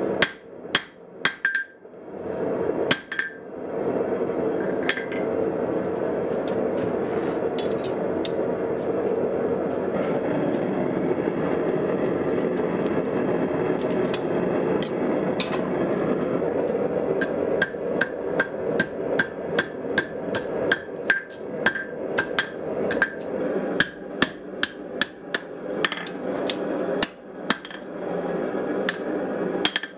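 Hand hammer striking hot spring steel on an anvil a few times, then the steady rushing of a propane forge burner while the blade reheats. From about halfway through, hammer blows resume at about two a second, each with a short ring from the anvil, over the forge's rush.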